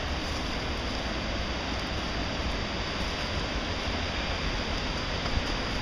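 Steady rush of the Kaweah River's flowing water, an even noise with no breaks.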